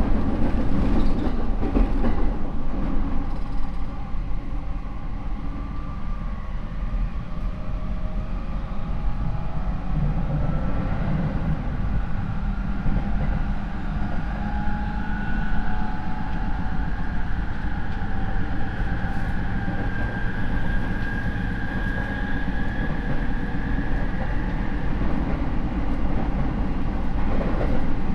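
Rinkai Line 70-000 series electric train running, heard from inside the car: steady rumble of wheels on rail, with the whine of its MT73 traction motors and Mitsubishi IGBT inverter climbing slowly in pitch as the train gathers speed. This car's motors are unusually loud, with a screech-like tone around 60–70 km/h.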